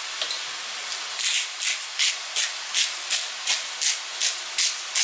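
Hand-twisted pepper mill grinding peppercorns: a quick gritty rasp repeated about three times a second with each twist, starting about a second in.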